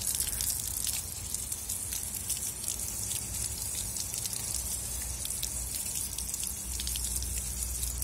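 Water from an outdoor tap running over a bunch of purslane held under it and splashing onto concrete, a steady spatter throughout.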